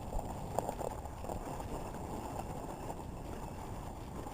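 Dog sled moving along the trail behind a small team of running dogs: a steady rushing noise, with a couple of light knocks in the first second.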